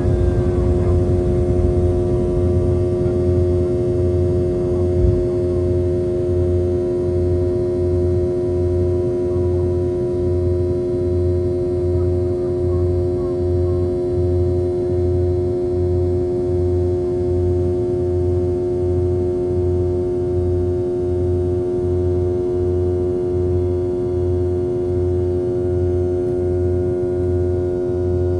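Cabin drone of a Boeing 717-2BL's rear-mounted Rolls-Royce BR715 turbofans in flight: a loud, steady mix of tones with a low hum that throbs evenly, a little faster than once a second.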